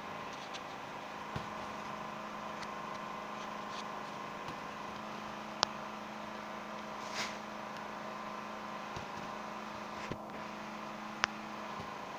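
Steady mechanical hum throughout, with a few sharp clicks and a short rustle about seven seconds in from hand-stitching, needle and thread worked through embroidery fabric.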